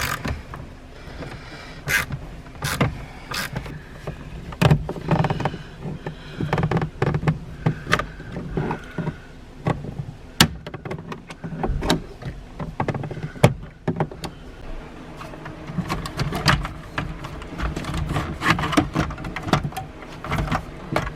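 Irregular metallic clicks and knocks of hand tools working a bolt that was jammed in with the wrong thread pitch, with quicker clicking in the last few seconds.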